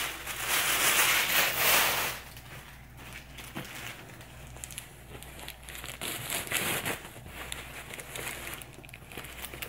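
Black tissue paper crumpling and crinkling as it is pulled out of a box, loudest for about the first two seconds. After that come fainter rustles and small handling clicks as a satin dust bag is turned over in the hands.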